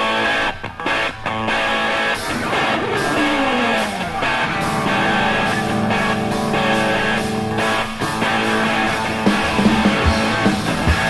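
Rock band's electric guitar intro: choppy stop-start chords, then a note sliding down and steady sustained riffing, with low drum hits coming in near the end.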